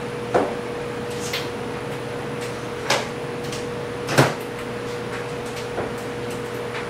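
A handful of short knocks and clatters of plastic measuring cups and tools being set down and handled on a workbench, the loudest about four seconds in, over a steady hum with a constant tone.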